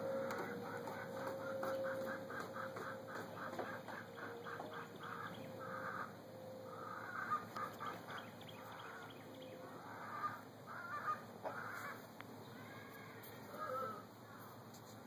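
Chickens calling faintly: a quick run of short clucks, about four a second, then longer, spaced calls.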